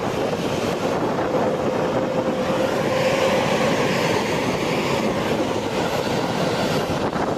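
Jet aircraft engines running: a loud, steady roar with a held mid-pitched tone, and a hiss that swells and fades in the middle.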